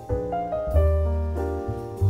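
Background piano music: a series of sustained chords over a bass line.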